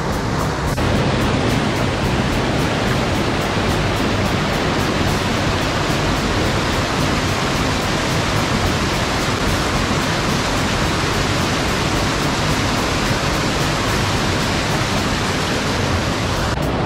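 Steady, loud rush of water from a waterfall cascade, an even noise spread across all pitches. The tone shifts slightly just under a second in and again near the end.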